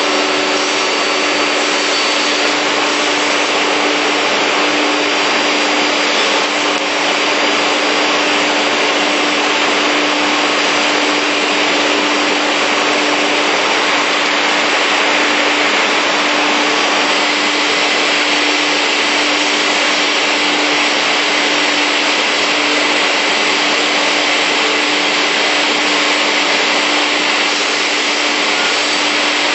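Industrial beam saw running, with a bottom-mounted sawing unit that has an 11 kW motor and a scoring blade. It makes a steady, loud machine noise with a steady hum underneath, and no breaks.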